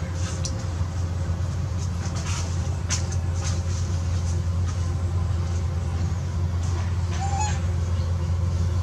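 A steady low hum throughout, with a few soft knocks early and one short, faint, high baby-monkey cry that rises and falls about seven seconds in.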